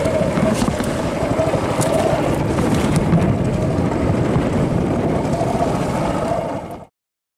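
Small fishing boat's outboard motor running steadily under way, mixed with wind and water rushing along the hull, with a few light knocks. The sound stops abruptly about seven seconds in.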